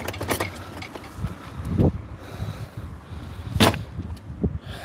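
A loaded hand trolley carrying an e-scooter rattling and rumbling as it is pulled over pavement, with irregular knocks, the sharpest about three and a half seconds in.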